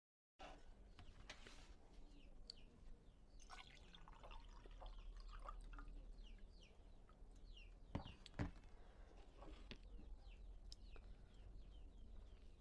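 Faint sound of water being poured from a jug into a drinking glass, with small trickling and dripping ticks. Two sharp knocks about eight seconds in.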